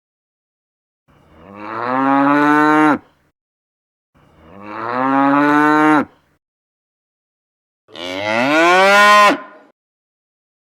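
Cow mooing three times, each call about two seconds long, rising slightly in pitch and dropping off at the end, with silence between the calls.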